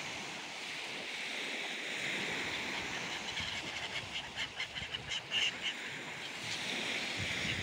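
Steady hiss of small waves washing onto a sandy shore, with a quick run of short bird calls from about three to six seconds in.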